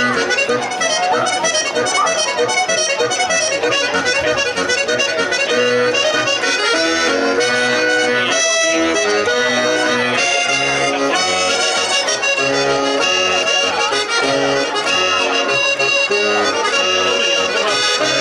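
Accordion playing a traditional Sardinian dance tune with a steady rhythm.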